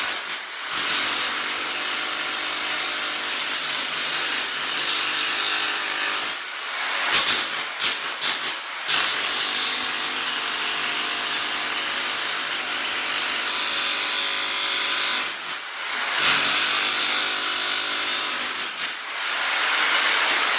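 Rotary hammer with a flat chisel blade hammering continuously, chipping thin-set and self-leveling concrete off a concrete slab. It runs steadily, stopping briefly near the start, running choppily on and off about a third of the way in, stopping again about three quarters through, and easing off near the end.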